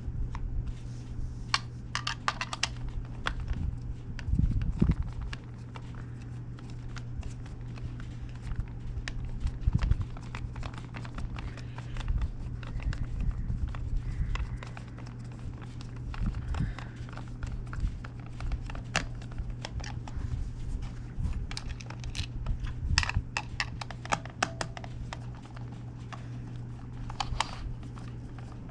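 Small handling noises of a plastic controller shell being screwed back together: irregular clicks, taps and scrapes of a screwdriver and fingers on plastic, over a steady low hum.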